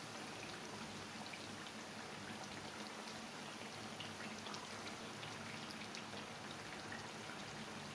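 Potato tikkis (grated-potato cutlets) frying in hot oil in a pan: a steady sizzle with many small crackles and pops.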